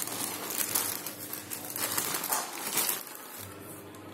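Plastic courier mailer bag crinkling and rustling as it is handled, in a run of short bursts over the first three seconds, then quieter.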